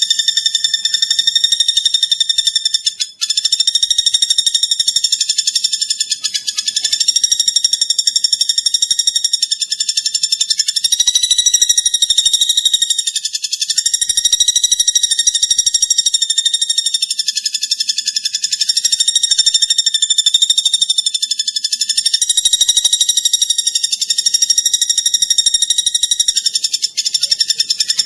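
Platuk bawang woodpecker call played as a continuous, very fast high-pitched trill, a buzzy rattle that wavers slightly in pitch and runs without a break.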